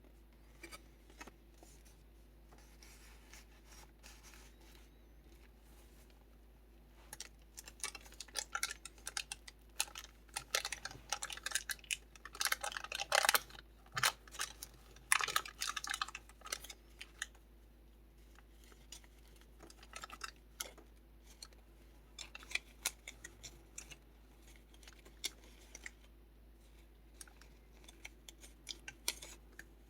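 Paper rustling and crinkling as the kraft-envelope pages of a junk journal are turned and handled, a quick run of crisp rustles and clicks that is busiest in the middle and sparse at the start and end.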